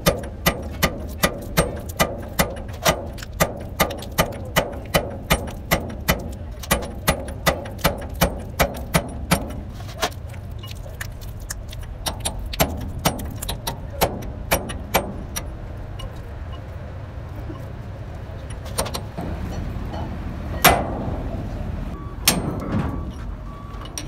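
Hammer striking metal in a steady rhythm, about two blows a second, each with a short metallic ring. The blows thin out after about ten seconds, and there is one loud strike a little after twenty seconds.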